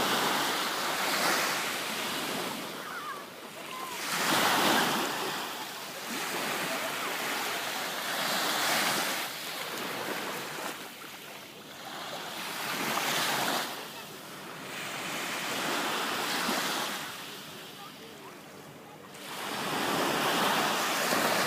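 Mediterranean surf breaking on the shore, each wave rising to a rush and washing back, about every four seconds.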